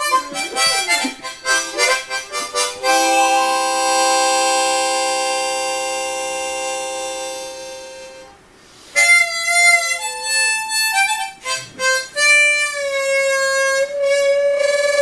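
Harmonica playing: quick runs of notes, then a long held note that slowly fades away. After a brief pause, more notes follow, ending on another held note.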